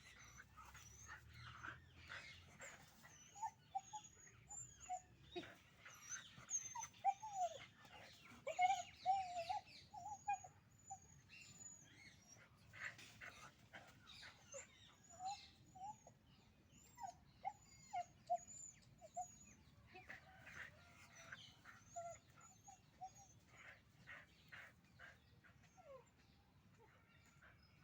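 Puppies play-fighting: many short, high whimpers and yips, with scuffling knocks and scratches between them.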